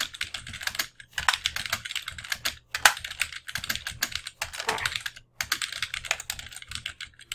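Typing on a computer keyboard: runs of quick key clicks, with brief pauses about a second in, a little past two and a half seconds, and just after five seconds.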